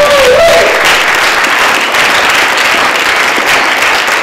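A room of people applauding, with dense, steady clapping. It opens with one voice holding a long cheering whoop that ends about half a second in.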